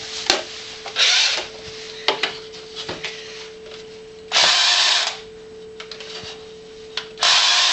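Battery-powered toy power tool: three short buzzing bursts, each about half a second to a second long, over a steady electronic hum, with a few sharp clicks between them.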